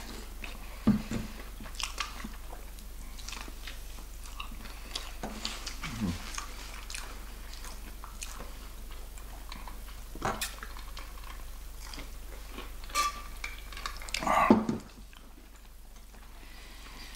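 Close-miked chewing of fried chicken, with scattered wet mouth clicks and smacks and a louder knock near the end.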